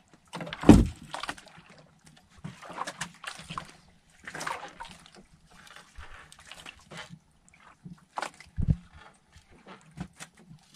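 Handline fishing from a wooden outrigger boat: water splashing and sloshing at the hull while the line is hauled in over the gunwale, with irregular knocks on the wood. A heavy thump comes about a second in and another about nine seconds in.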